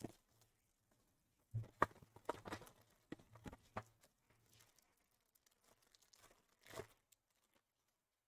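Faint tearing and crinkling of a foil-wrapped trading-card pack being ripped open, mixed with light clicks and rustles of the cards and box being handled. The sounds come in short bursts from about one and a half to four seconds in, and once more near the end.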